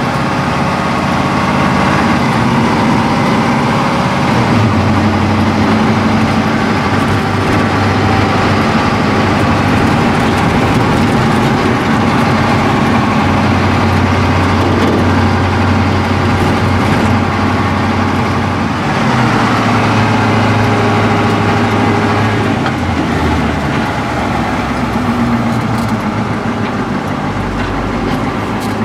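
The engine of a 1987 Ford C-Series garbage truck running as it drives, heard from inside the cab. Its note steps up and down a few times as the engine speed changes.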